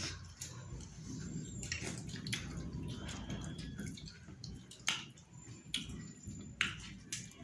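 Eating sounds of rice taken by hand: fingers scraping along a steel plate with a wet rustle, then several sharp wet smacks in the second half as fingers are licked.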